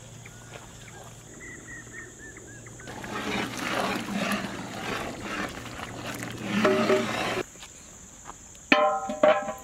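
Thick dal and mutton bubbling and plopping at a rolling boil in a large pot, cutting off suddenly. Near the end a large steel pot lid clangs twice and rings.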